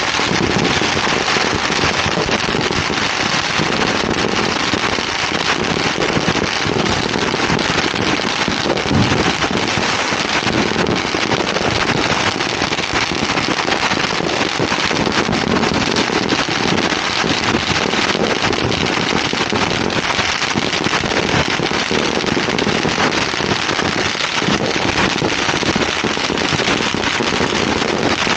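Many firecrackers going off at once: a dense, unbroken crackle of countless small bangs at a steady loud level.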